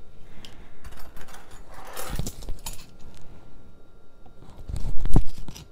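Small clinks and knocks of a metal spoon and cup being handled while measuring out half and half, with a heavier thump about five seconds in.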